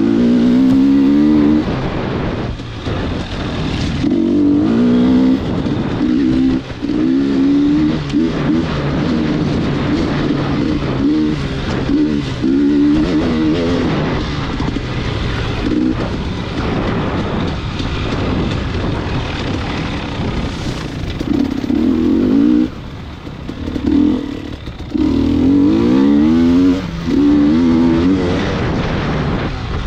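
A vehicle engine running under changing load, its pitch rising and falling again and again, with brief drops in level in the second half.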